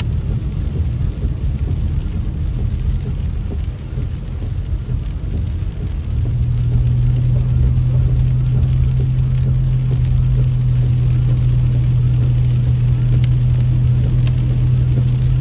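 Car driving on a wet road in rain, heard from inside the cabin: tyres hissing on wet pavement over a steady low hum that is missing for the first several seconds and comes back about six seconds in.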